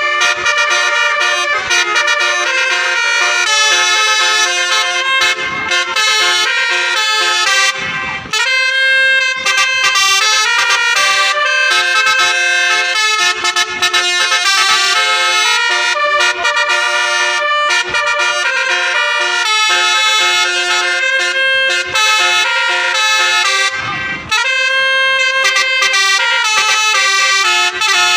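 Indonesian tourist-bus basuri telolet horns playing tunes: a multi-tone horn driven by a tune module, stepping from note to note in a melody, loud and continuous apart from two brief pauses, near eight seconds and near twenty-four seconds in.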